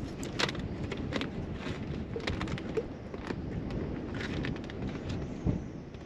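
Steady wind rumble and water noise from a boat on choppy water, with small waves slapping irregularly against the hull to make scattered light clicks and slaps.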